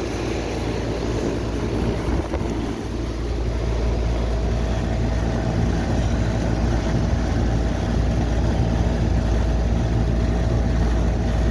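Heil air-conditioning condensing unit running: a steady compressor hum under the rush of the condenser fan's air. A faint steady whine joins about three seconds in. The unit is still cooling.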